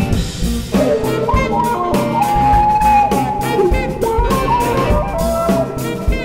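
A jazz septet playing: a melody line holds a long note over drum kit.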